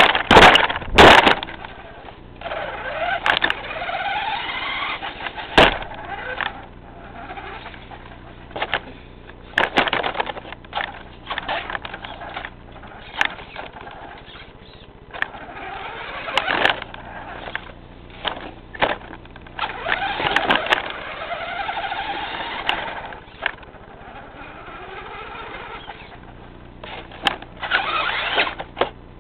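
Traxxas Stampede R/C truck driving about, its motor and drivetrain whining up and down in pitch as it speeds up and slows, with frequent sharp knocks and bumps from the chassis hitting things; the loudest knocks come in the first two seconds.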